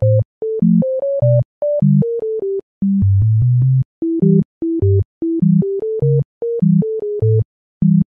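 Background music: a bouncy electronic synthesizer tune of short, clipped notes over a bass line, with brief silences between the notes.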